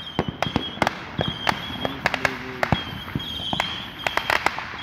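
Fireworks going off all around: a rapid, irregular run of sharp pops and bangs, some close and some distant.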